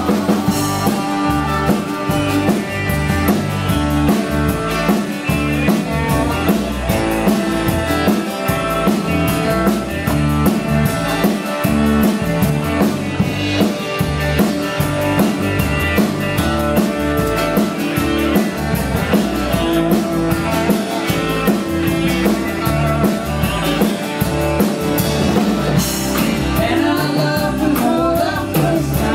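Live blues-rock band playing with a steady beat: acoustic guitar, electric guitar, electric bass and drum kit. A singing voice comes in near the end.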